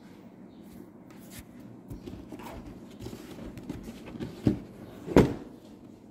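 A cardboard cake box being handled and opened: scattered scrapes and rustles, with two sharp knocks about four and a half and five seconds in.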